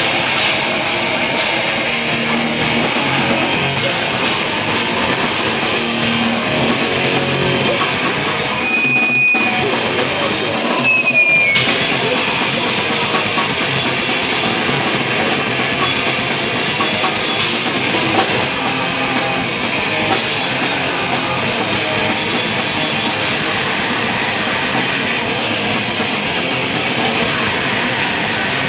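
Live rock band playing loud: electric guitars and a drum kit. About nine seconds in the low end drops out briefly and a thin high squeal sounds twice, the second one sliding down in pitch, before the full band comes back in.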